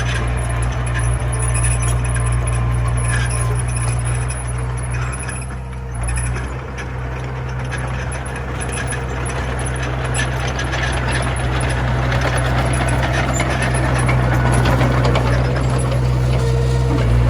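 Komatsu mini bulldozer's diesel engine running with a steady low drone and metallic rattling and clatter, easing off briefly about six seconds in and then growing louder toward the end as it works.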